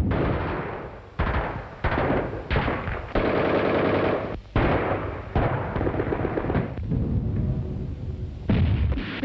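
Bren light machine gun firing a string of short bursts, each starting sharply and dying away, roughly one burst a second.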